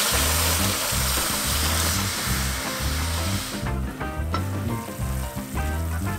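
Stock poured into a hot pot of fried vegetables, hissing and sizzling loudly, cutting off suddenly about three and a half seconds in. Background music with a steady bass beat plays throughout.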